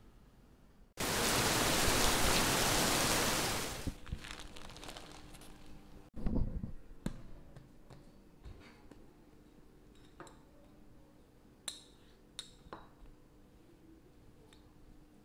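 Plastic cling wrap being pulled off rested bread dough: a loud steady rustle lasting about three seconds. Then hands press and flatten a ball of dough on a wooden board with soft thumps, and a stainless steel rolling pin clinks lightly against the board a few times.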